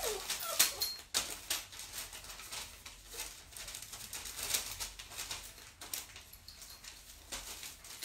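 Dogs moving about: a run of irregular light clicks and taps.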